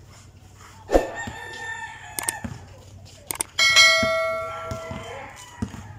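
A rooster crows: one long call starting about three and a half seconds in and fading away, with a fainter crow about a second in. A basketball bounces on the concrete court a few times.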